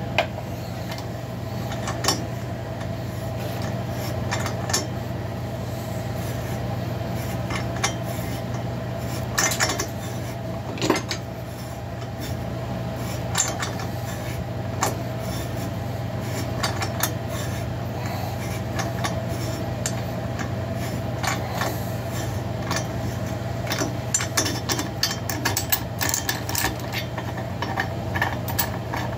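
Small metal clicks, clinks and scraping as a tool is turned by hand in the spark plug hole of a chainsaw cylinder, with the clicks coming thicker near the end. A steady hum runs underneath.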